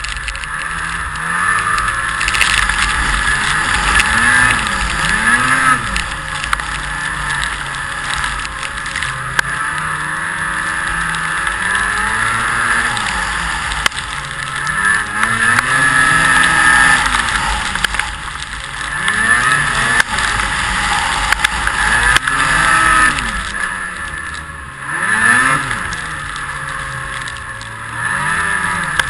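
Snowmobile engine running with its pitch rising and falling again and again as the throttle is opened and eased off, over a steady hiss.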